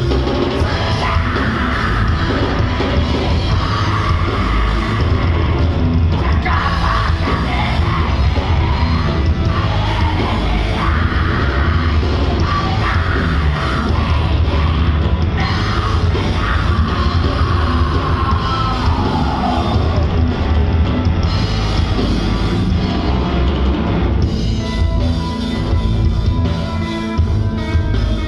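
Live heavy metal band playing: distorted guitars, bass and drums with a singer's vocals over them. The vocals stop about three quarters of the way through, leaving the band playing on.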